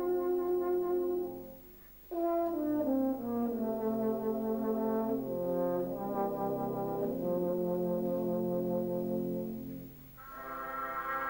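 Euphonium playing a slow solo of long held notes with brass band accompaniment. The playing breaks off briefly about two seconds in and again near the end, then comes back in.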